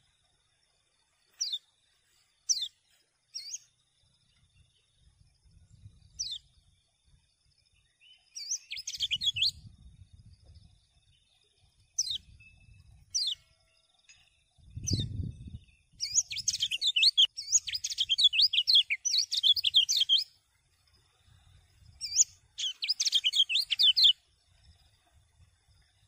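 Kecial kuning white-eye calling: single sharp downward-sweeping chirps at intervals, breaking into three bursts of rapid, high twittering song, the longest about four seconds. A faint steady high whine runs underneath, and a brief low rumble comes about midway.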